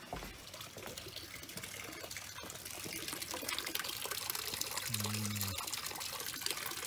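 Pump-fed garden pond waterfall splashing and trickling steadily, getting louder after about two seconds.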